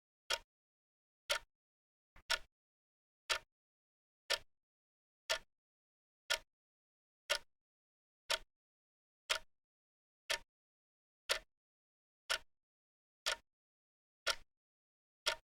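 Clock ticking steadily, one sharp tick each second with silence between the ticks.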